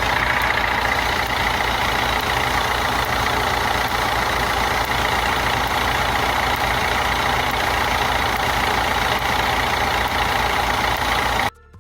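Fiat Grande Punto 1.3 Multijet diesel engine idling steadily, with the repeated 'chas, chas' the owner complained of: static electricity built up on the worn accessory belt discharging to the engine through the pulley. The sound cuts off suddenly near the end.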